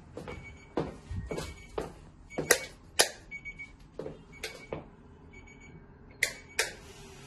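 Footsteps and sharp clicks on a hard floor, about two a second and uneven, pausing briefly before two last steps, as someone walks into a small room.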